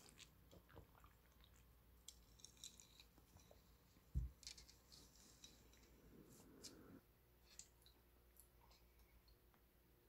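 Quiet handling sounds of a glass of iced latte: faint clinks of ice and glass, a single soft low thump about four seconds in, and a brief rustle as the glass is set on a fabric coaster.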